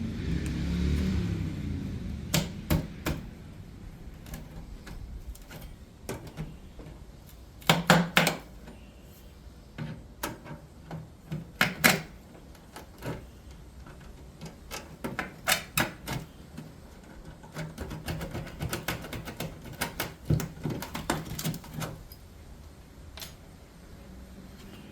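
An HVAC floor vent being pried and torn out of the floor: irregular clusters of sharp knocks and clatters, the loudest about eight and twelve seconds in.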